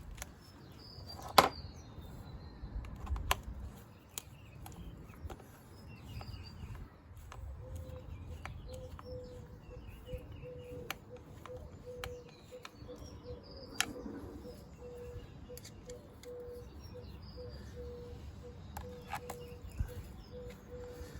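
Scattered clicks and knocks of hand tools and bolts while a motorcycle's rear hugger is fitted back on, with one sharp knock about a second in. Birds chirp faintly, and a faint steady tone comes in about seven seconds in.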